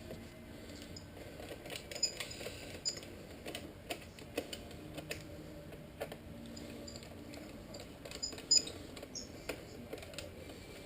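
Scattered light clicks and taps of hands handling motorcycle fairing plastics and small fasteners, irregular in rhythm, with one sharper knock a bit past eight seconds in.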